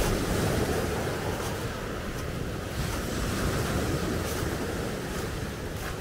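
Black Sea waves breaking and washing up a pebble beach, with wind buffeting the microphone in a low rumble.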